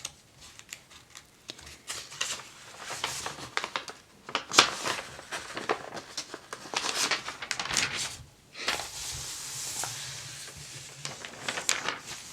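Thin catalog paper being handled and the pages turned: rustling and crinkling with many small sharp crackles, and a smoother sliding rustle later on.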